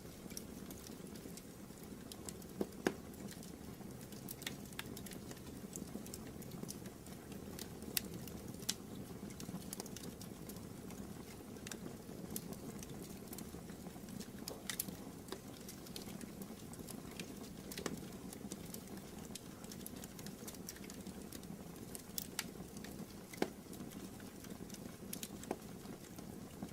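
Wood fire burning in a fireplace: irregular crackling over a steady low background, with occasional sharper pops, the loudest about three seconds in, at eight seconds and near the end.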